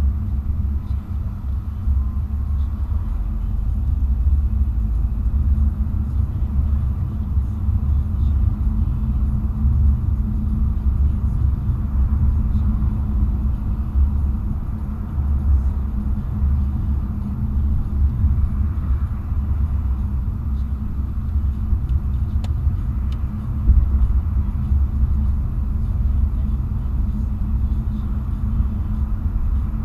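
Steady low rumble of a car driving through city traffic, heard from inside the cabin: engine and road noise with no sharp events.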